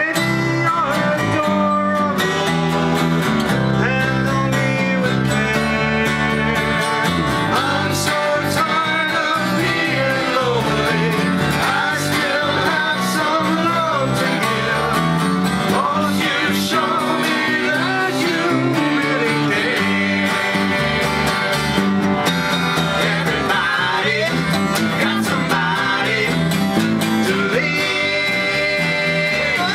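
Live acoustic string band playing a song: acoustic guitar strumming with a man singing lead into a microphone, other voices joining in.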